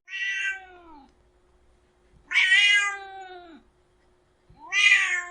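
Domestic cat meowing: three drawn-out calls about two seconds apart, each falling in pitch as it ends.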